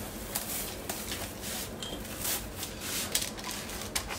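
Food wrap crinkling and rustling in short, irregular crackles as it is peeled off a baking tin of dough.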